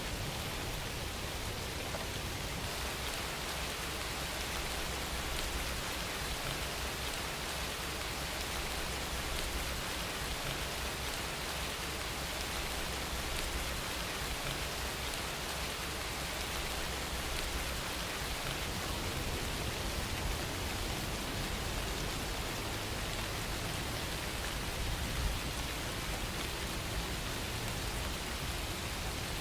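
Steady rain falling, an even hiss of many drops striking a surface.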